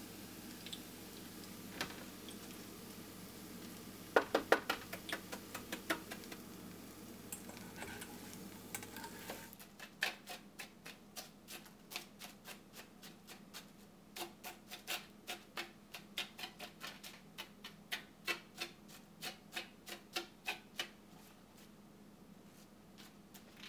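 Tempura batter drops frying in hot oil with a faint steady sizzle and a few sharp clicks. From about ten seconds in, a rapid run of light sharp taps, two to three a second, as a metal mesh skimmer taps and presses the crisp fried tenkasu crumbs on a paper towel.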